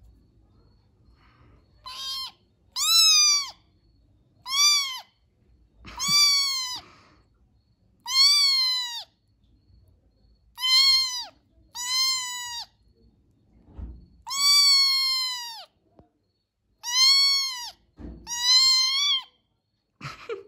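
Young kitten meowing over and over, about ten high, thin calls a second or two apart, each rising and then falling in pitch.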